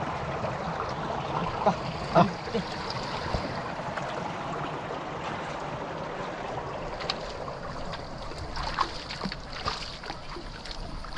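Running water flowing steadily over stones, with a few short splashes and knocks, the loudest about two seconds in and a cluster later on.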